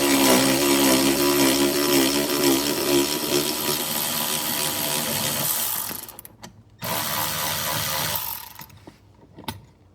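Cordless power tool spinning out a seatbelt retractor mounting bolt: one long run of about six seconds with a slightly wavering whir, then a shorter run of about a second and a half as the bolt is backed out all the way.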